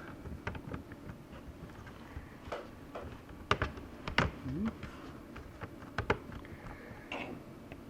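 Plastic clicks and taps as an Asus X54c laptop's palm rest is pressed down and its clips snap into place, in irregular sharp clicks with a few louder ones in the middle.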